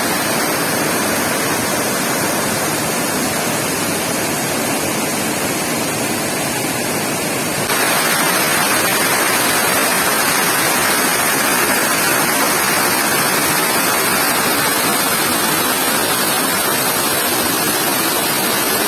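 Steady rushing of a waterfall, a dense unbroken hiss of falling water that grows louder about eight seconds in.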